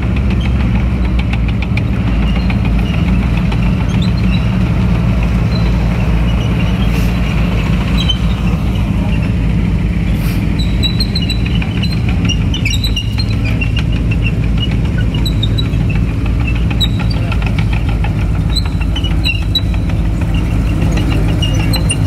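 M5 Stuart light tanks driving slowly past, their twin Cadillac V8 engines running steadily, with the steel tracks squeaking and clinking, more often in the second half.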